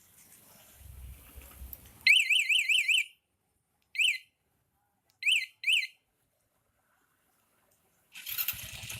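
Autofy motorcycle anti-theft alarm sounding through its siren: a rapid high warble for about a second, then three short chirps, the last two close together, typical of an alarm being armed and disarmed from its remote. Near the end the Hero Passion Pro's single-cylinder engine starts and runs.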